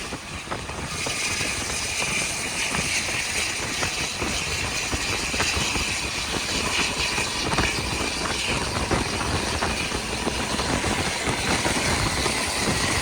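Motor vehicle running: a steady engine and road noise with a few faint knocks.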